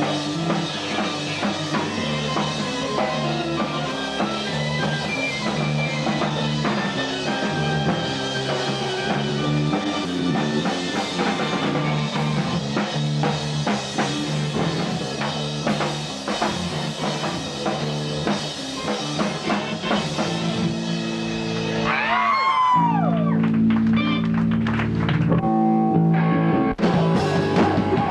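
Rock music with drum kit and electric guitar. About three-quarters of the way through, a series of swooping up-and-down pitch glides cuts in, then the music turns louder with long held chords.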